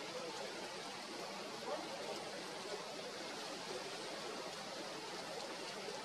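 Steady outdoor background hiss, even and unbroken, with only faint indistinct sounds in it and no bird call standing out.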